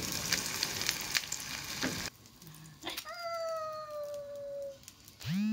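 Egg frying in hot oil in a pan: a steady crackling sizzle that cuts off about two seconds in. After it comes one long, slightly falling tone, then a short rising sweep near the end.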